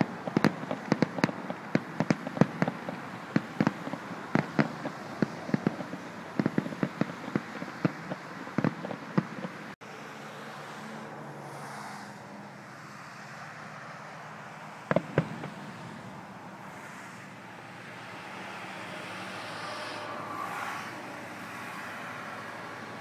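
Firecrackers going off in quick, irregular cracks for about ten seconds. The sound then cuts abruptly to a steady low background rumble, broken once midway by a short burst of a few more pops.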